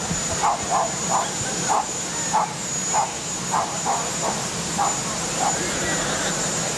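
Marine One, a Sikorsky VH-3D Sea King helicopter, with its turbine engines running steadily: a steady high whine over a low hum. Short sharp sounds, about two a second, break in over it.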